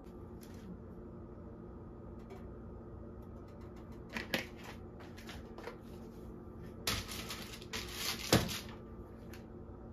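Steady low kitchen hum with scattered light clicks and knocks, a few about four seconds in and a cluster about seven to eight and a half seconds in, the loudest a sharp knock near the end of that cluster.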